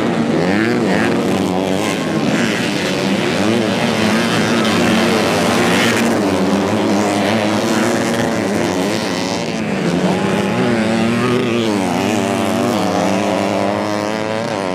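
Modified 110cc four-stroke underbone racing motorcycle engines revving hard, several at once, their pitch rising and falling as the riders accelerate and back off through the corners.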